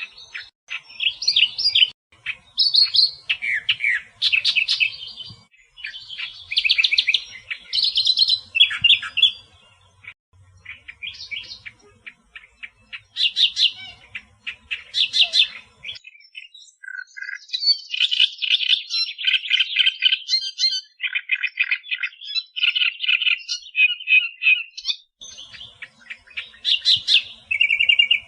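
Australian reed warbler singing: loud, varied phrases made of rapid runs of repeated notes and warbled snatches, broken by a few short pauses.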